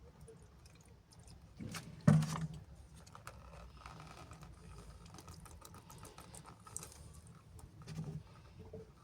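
Handling of a removed plastic power steering reservoir and its containers: a sharp knock about two seconds in, then scattered light clicks and taps.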